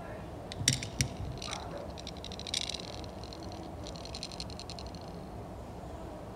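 Two sharp clicks about a second in, then 18 mm Czech glass ammonite beads sliding and rattling inside a small clear plastic box as it is picked up and tilted.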